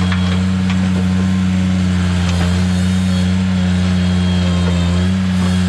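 Ventrac 4500Z compact tractor's engine running steadily at high throttle, its pitch dipping slightly near the end, with a few faint knocks.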